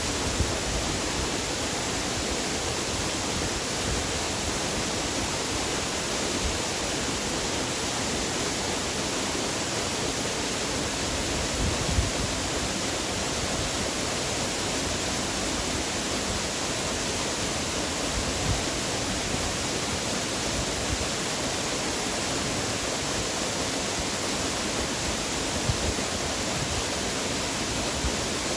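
Waterfall: a steady, unbroken rush of falling water, with a few brief low thumps.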